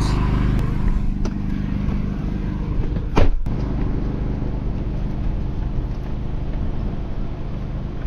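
Pickup truck on the move: steady engine hum and road noise, with one short, loud knock about three seconds in.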